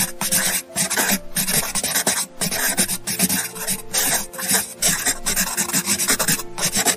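Writing on paper: rapid, scratchy strokes scribbling across a form, in uneven bursts with short breaks between them.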